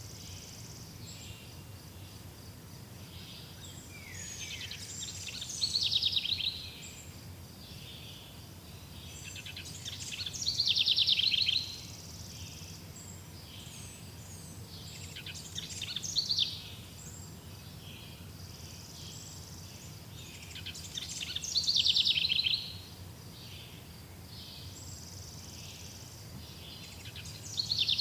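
A songbird repeating a fast trilled song phrase about every five to six seconds, over a steady faint low hum.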